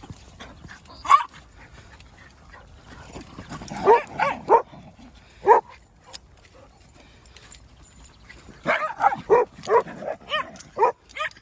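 A dog barking and yipping in short, high calls: one about a second in, a few together around four seconds, one more a little later, then a quick run of yips over the last three seconds. These are the excited calls of a dog that wants to play.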